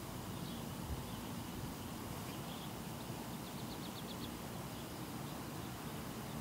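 Steady outdoor background noise with a low hum, and a quick faint trill of about eight high chirps a little past halfway.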